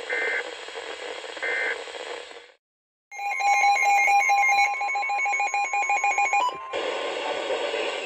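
Midland WR-100 weather radio speaker hissing with short repeated beeps. After a brief cut, the radio sounds its pulsing, stepping alert alarm over a steady alert tone for about three and a half seconds, marking an incoming severe thunderstorm warning. Hissy broadcast audio follows.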